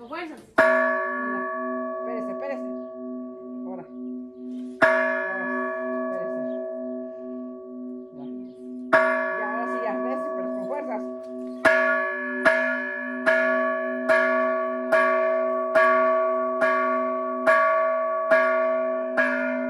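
A bell rung by hand with a rope. Three single strokes about four seconds apart, then a steady run of strokes a little more than one a second. Each stroke rings on with a sustained, slightly wavering tone.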